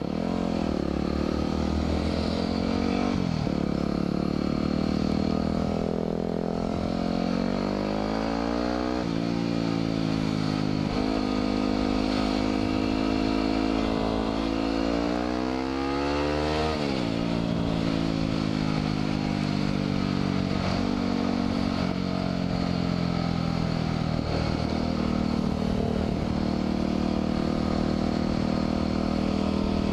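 2010 Yamaha WR250R's single-cylinder four-stroke engine running under way, heard from the rider's helmet. The engine note climbs under throttle and drops sharply at an upshift twice, about a third and again just over halfway through, then holds a steadier cruising note.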